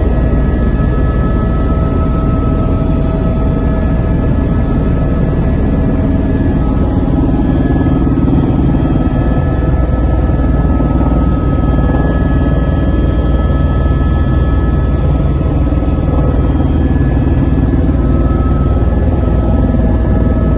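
Helicopter in flight, heard from inside the cabin: a steady, loud engine and rotor drone with a few constant high whining tones.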